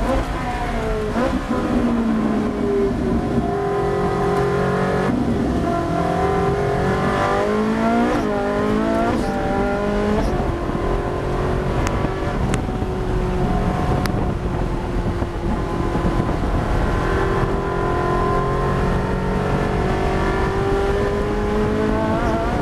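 Ferrari Challenge race car's V8 engine heard from inside the cockpit at racing speed, its pitch repeatedly climbing as it revs up through the gears and dropping on braking and downshifts.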